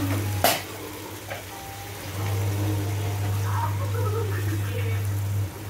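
Boiled kidney beans being stirred into a thick tomato masala in a pan with a wooden spatula: soft wet stirring, with a sharp knock against the pan about half a second in. A steady low hum runs underneath, cutting out for over a second just after the knock and again near the end.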